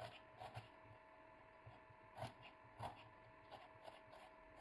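Kitchen knife slicing a red onion on a wooden cutting board: faint, irregular taps of the blade reaching the board.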